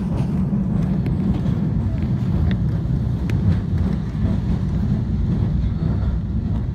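W class electric tram running along the track: a steady low rumble of wheels and running gear, with a few faint clicks scattered through it.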